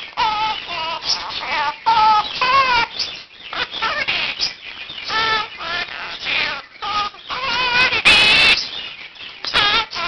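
Quaker (monk) parakeet calling: a rapid string of short chattering calls and wavering whistles, with a loud harsh squawk about eight seconds in.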